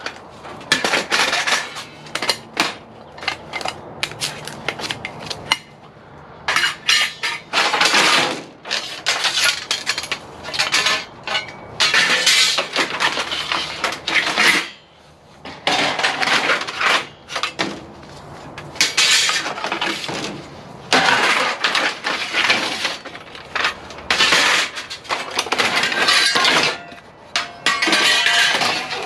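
Scrap 6063 extruded aluminum lengths clattering and clanking against each other as they are shifted by hand in the pile, in repeated bursts of a second or two with short pauses between.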